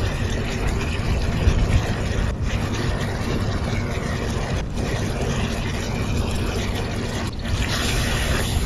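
Chicken pieces simmering in sauce in a nonstick wok: a steady bubbling sizzle with a low rumble, broken by three brief dips. Near the end a wooden spatula starts stirring through the pan.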